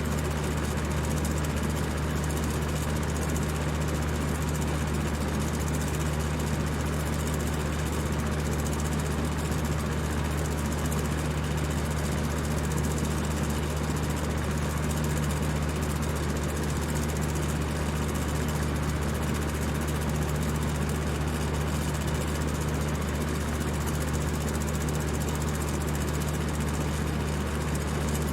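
High-speed electric fan running steadily: an even rush of air over a constant low hum.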